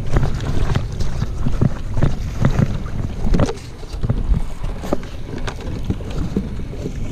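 Wind buffeting a body-worn camera microphone, with rustling of rubber waders and short knocks from a plastic bucket being handled.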